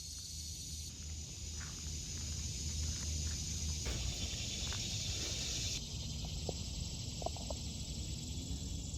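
A baby crawling across the floor: faint rustles and small taps over a steady hiss.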